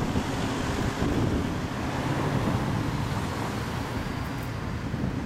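Yamaha Cygnus-X 125 cc single-cylinder scooter engine idling steadily through a JOSHO1 Hyper Racing aftermarket exhaust.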